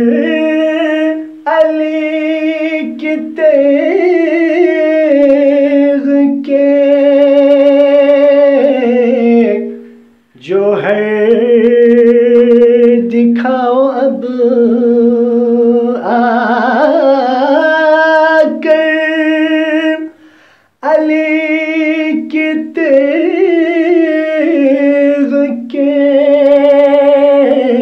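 A man singing an Urdu devotional manqabat unaccompanied, in long drawn-out held notes with vibrato. Three phrases, broken by short pauses about ten and twenty seconds in.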